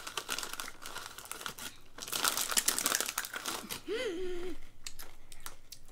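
Ruffles potato chip bag crinkling as hands reach in and pull out chips, densest in the first three seconds. A short vocal hum comes about four seconds in.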